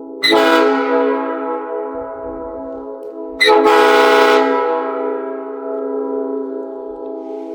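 Locomotive air horns on a private compressed-air setup sounding a sustained multi-note chord. The horns are hit hard twice, about a quarter second and three and a half seconds in, each blast bright at first before settling back into the steady chord.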